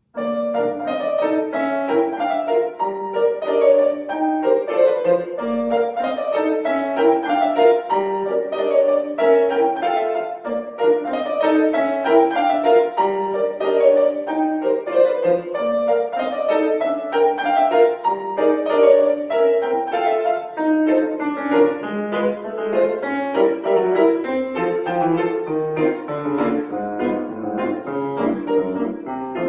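Acoustic piano playing a classical piece, a dense, continuous run of notes that starts suddenly out of silence.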